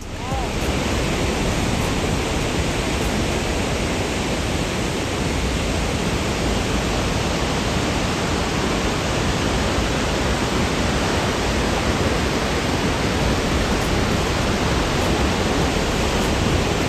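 Victoria Falls, the Zambezi's waterfall, heard as a steady, even rush of falling water with no change throughout.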